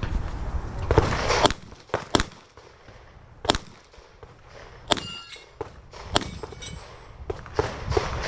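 Handgun shots fired one after another by a competitor working through a stage, about half a dozen sharp cracks spaced irregularly, a second or so apart.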